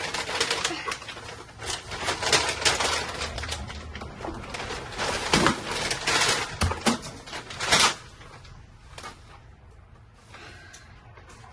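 Irregular rustling, scraping and sharp knocking noises for about eight seconds, then much quieter with only a few faint rustles.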